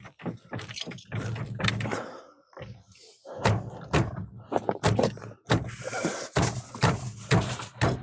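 Irregular knocks, clunks and rattles of hardware being handled, a dozen or so sharp strikes at uneven spacing over a steady low hum.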